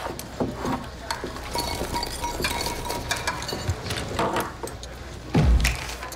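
Spoon and ceramic bowls clinking and knocking as they are handled, with a louder low thump about five and a half seconds in.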